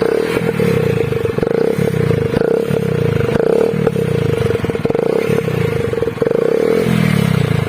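Hero Splendor Plus motorcycle's single-cylinder engine running through an add-on sound box, blipped up and down about once a second to give a KTM-like exhaust note.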